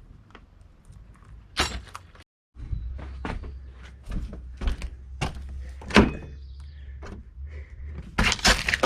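Scattered knocks and thunks from a motorhome's metal-framed entry door being handled. A sharp knock about six seconds in is the loudest. The sound drops out for a moment a little after two seconds.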